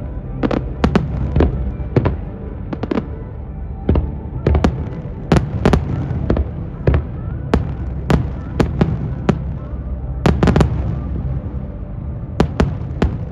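Fireworks display: a rapid, irregular run of sharp shell bursts, often two or three a second, over a continuous low rumble, with a short lull before a final cluster of bangs near the end.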